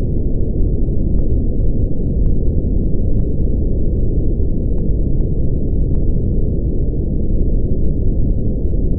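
Brown noise: a steady, deep rumbling hiss like a distant waterfall, with nearly all of it low and nothing above about 1 kHz, unchanging throughout.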